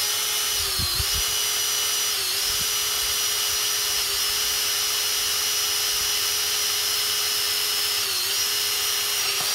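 Cordless drill running steadily on its low-speed setting, boring an oiled hole through the aluminium body of a Yamaha Banshee carburetor for an idle screw. Its whine dips briefly in pitch three times as the bit loads up.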